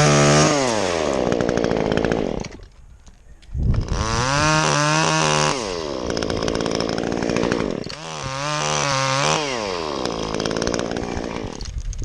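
Stihl chainsaw revving in three surges, each sliding back down in pitch, with a short drop in the engine near the three-second mark.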